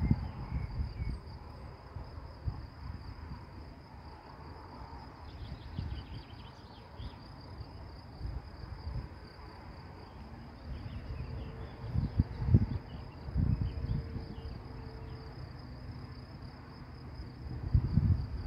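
Crickets chirping in a steady high-pitched drone, with gusts of wind buffeting the microphone, strongest about twelve seconds in and again near the end.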